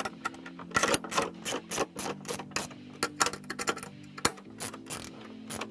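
Metal clicking and rattling from hand tools and bracket hardware as the mounting-bracket screws are fitted and tightened, with sharp clicks coming several times a second at an uneven pace.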